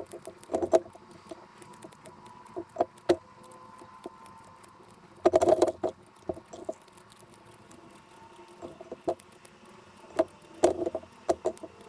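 Scissors snipping through soft plastic fishing lures in bursts of quick cuts, with the pieces dropping into a glass measuring cup. The busiest bursts come about halfway through and near the end.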